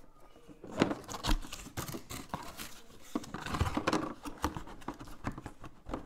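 Cardboard product box being handled and opened: scraping and rustling of cardboard with many small knocks and taps.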